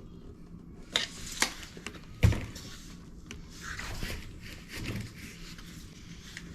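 Tools and pipe parts being handled: three sharp knocks in the first two and a half seconds, the third the loudest, then softer rubbing and scraping.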